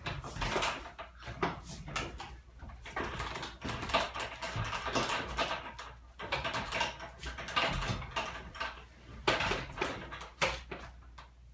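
Irregular knocks, creaks and rustles of a home-built wooden obstacle rig and its rope cargo net as a climber grips and moves through it.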